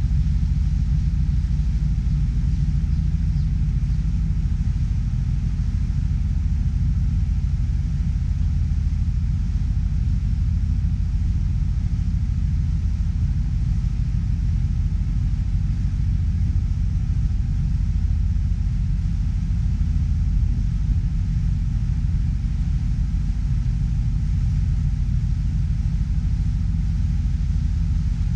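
Steady low rumble of a ferry boat under way, heard on board, with its engine and passage through the water blending into one even drone.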